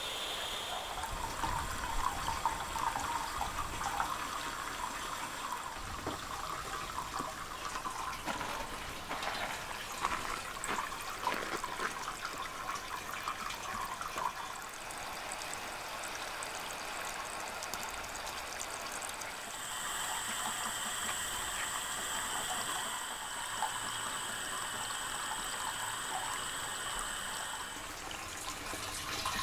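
Water trickling and splashing as it runs off a corrugated galvanized steel roof into a makeshift flashing gutter and pours down into PVC pipe. A steady high tone joins in for several seconds near the end.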